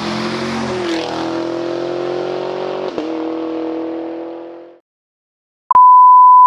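Channel logo sound effect: a pitched, engine-like rev swells up, with sharp hits about one and three seconds in, and fades out. After a short silence, a steady loud test tone starts near the end: the 1 kHz reference tone that goes with colour bars.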